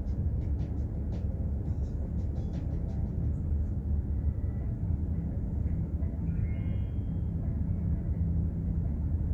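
Container ship underway: a steady low rumble from the engine and hull, with a constant low hum.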